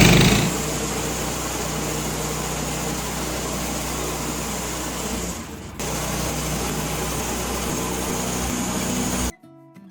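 Sawmill's engine running steadily, dipping briefly about halfway and cutting off abruptly near the end.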